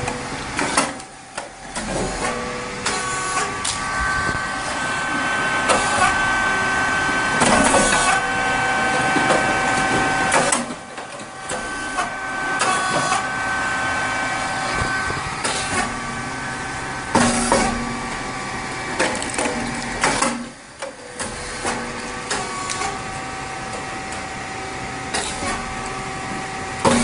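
Puffed rice cake machine running, a steady hum with several held tones from its hydraulic drive. A sharp pop comes every two to three seconds as the heated mold opens and releases a puffed cake.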